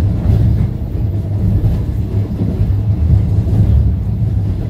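Moving passenger train's steady low rumble of wheels on the track, heard from inside the carriage.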